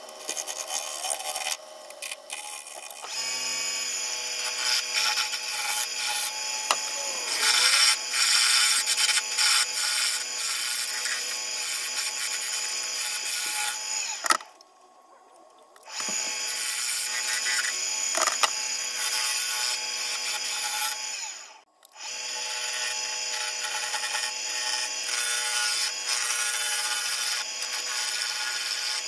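Gouge cutting into a spinning cherry wood bowl blank on a Record Power lathe: a continuous scraping hiss of shavings being taken, over the steady hum of the lathe. The cutting sound drops away for about a second and a half near the middle, and again briefly about seven seconds later.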